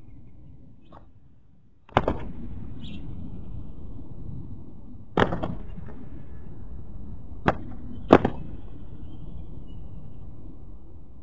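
Spotted doves' wings slapping sharply as they flutter, land and take off: four sudden claps, the loudest about eight seconds in, over a steady low rumble.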